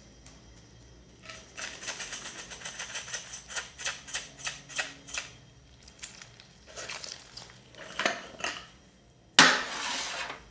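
Sugar sprinkles rattling inside a glass jar as it is handled and shaken: a rapid clatter of small clicks, stopping and starting again. Near the end, a sudden loud rush of noise fades over about a second.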